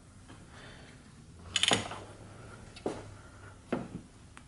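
A few separate knocks and clatters of metal tools and parts being handled, the loudest about a second and a half in and three smaller ones after it.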